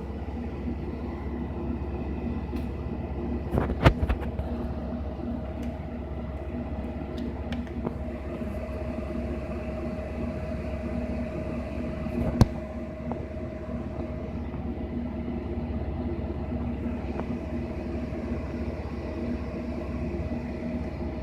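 Steady mechanical hum of a small motor, with a low rumble and a few held tones, broken by two sharp clicks about four and twelve seconds in.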